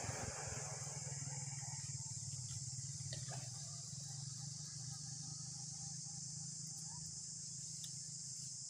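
Steady, high-pitched chorus of insects in tropical forest, with a low steady hum underneath. A broad rushing noise fades away in the first second.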